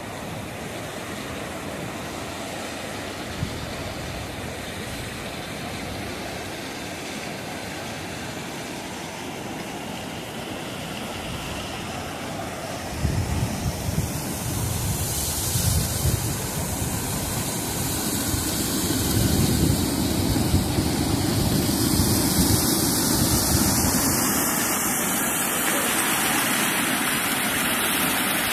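Rough sea surf washing steadily onto a sandy beach. About halfway through, wind starts buffeting the microphone in gusts, and the surf and wind noise grow louder.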